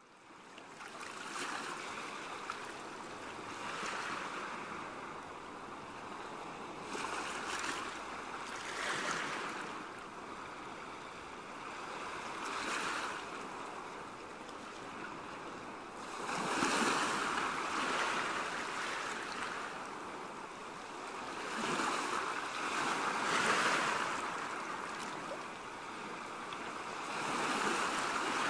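Small sea waves washing onto a pebble beach. The surf swells and eases every few seconds.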